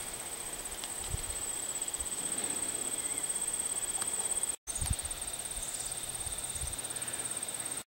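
Outdoor ambience dominated by a steady, high-pitched insect trill, with a few soft low bumps.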